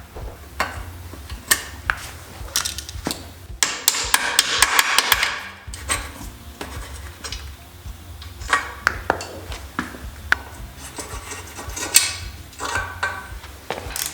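Hand tools knocking and clicking against metal parts in irregular sharp taps, with a rapid run of clicks lasting about two seconds near the middle.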